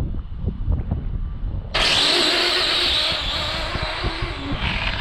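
Electric RC drag car launching off the line: a sudden burst of motor whine and tyre noise on asphalt about two seconds in, fading as the car runs away down the strip. Wind buffets the microphone throughout.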